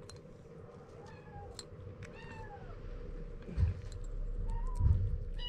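Young kittens meowing: about five short, high calls, several falling in pitch, some from two kittens close together. Two low thumps near the middle are the loudest sounds.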